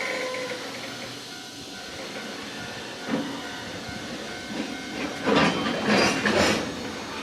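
Train passing over a railway level crossing: a steady running noise, then loud clacks of wheels over the rail joints, one about three seconds in and a heavy cluster between about five and six and a half seconds in.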